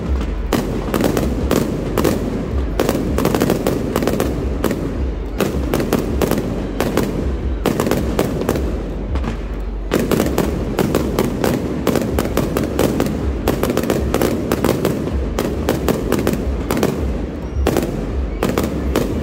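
Fireworks going off in a dense, continuous barrage: rapid, overlapping bangs and crackles over a steady low rumble, with no pause.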